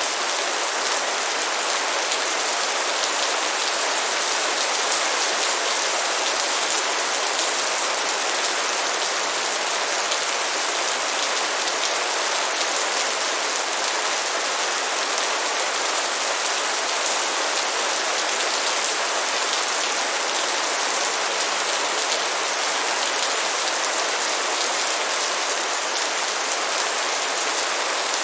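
Light rain falling steadily: an even hiss of many small drops, with no change in strength.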